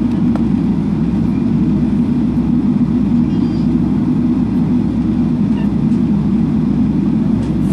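Steady low rumble inside the cabin of a Boeing 777-300ER as it taxis slowly, its GE90 engines at low taxi thrust.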